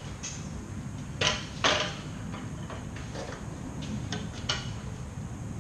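Metal clanks and knocks from a 4x6 bandsaw and its steel stand being handled, loudest a little over a second in, followed by a few lighter ticks, over a steady low hum.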